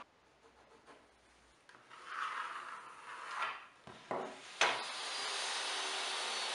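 Plywood and a metal square scraping and rubbing over a wooden workbench, then a few sharp knocks. After that a DeWalt job-site table saw's motor runs with a steady, even noise, the loudest sound here.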